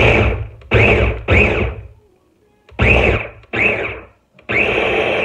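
Ninja food chopper pulsed six times, its blades chopping walnuts; each pulse whirs up quickly and the last runs about a second.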